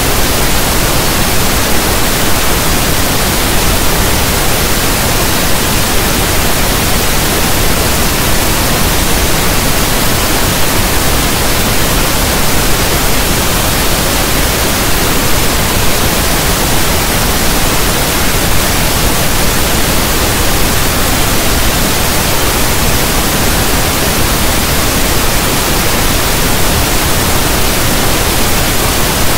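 Steady, unbroken pink noise, a loud even hiss that sounds like soft static from a radio station not in tune.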